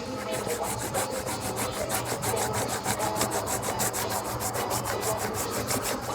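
Plant material rubbed rapidly back and forth against a stone, about six scraping strokes a second, staining the stone with colour.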